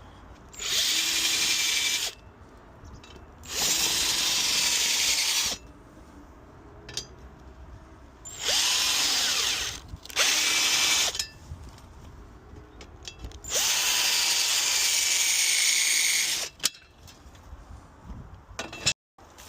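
Power drill boring fixing holes into a wall, in five separate runs of one to three seconds each, the motor winding up at the start of each run.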